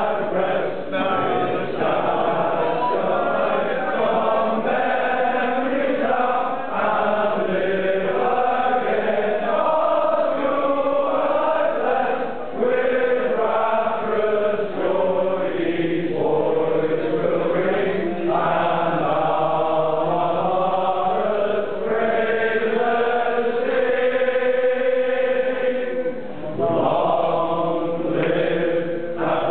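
A roomful of men singing the school song together, sustained sung lines with a brief break for breath near the end.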